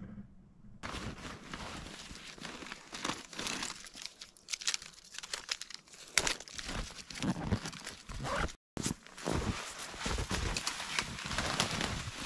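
Close rustling and crinkling of gear being handled: a backpack and plastic flagging tape. Then footsteps through snow and brush, with a brief dropout in the sound about two-thirds of the way through.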